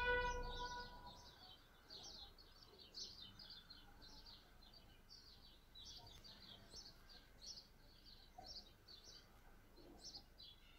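Small birds chirping faintly, many short chirps in quick succession. A short pitched tone sounds right at the start and fades within about a second.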